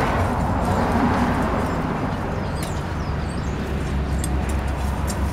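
Outdoor street ambience: a passing car's hiss fades away over the first second or two, leaving a steady low traffic rumble. A short high bird chirp sounds about three seconds in.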